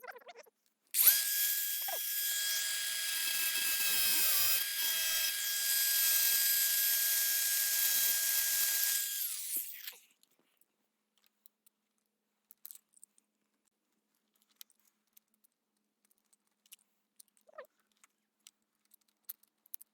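A power tool runs at a steady high pitch for about nine seconds, cutting the latch's rods to length, then winds down and stops. A few faint clicks of handling follow.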